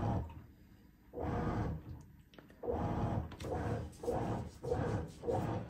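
Avanti top-load washer agitating a load in water, its impeller churning in short strokes with brief pauses, during the extra little wash that its towels cycle adds. The strokes come about one every second and a half at first, then quicken to about two a second for the last few seconds.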